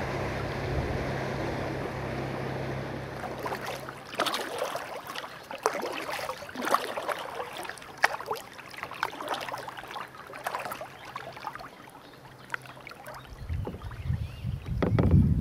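Kayak paddling: water splashing and dripping off the paddle and against the hull in irregular sharp splashes. Before the splashing starts there is a steady rush of wind and choppy water, and a low rumble near the end.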